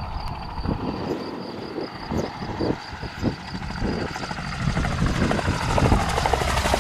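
An engine running up and getting steadily louder, with a rapid rhythmic beating in the first few seconds that merges into a continuous rumble.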